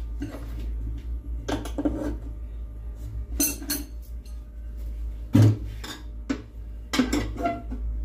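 Clattering and clinking of hard tools and metal objects being handled and set down, about ten separate knocks, some ringing briefly, with one heavy thump about five and a half seconds in, over a steady low hum.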